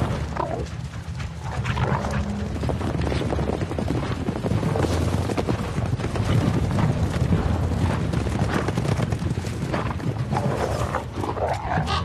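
A herd of horses galloping over the forest floor: many hoofbeats thudding in quick, overlapping succession.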